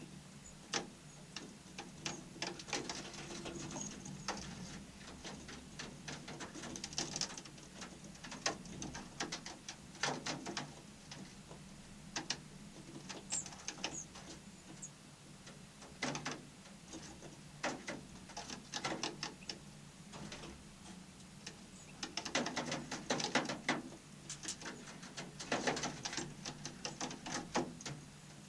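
Small birds pecking and scrabbling: rapid, irregular clicks and scratches that come in thicker runs, with one short high chirp about thirteen seconds in, over a steady low hum.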